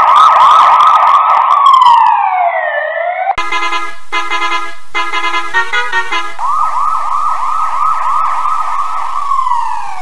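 Police car siren in a fast yelp that slides down in pitch about two seconds in; then a bus horn sounds in several short blasts, a chord of steady tones; then the siren yelp comes back and slides down again near the end.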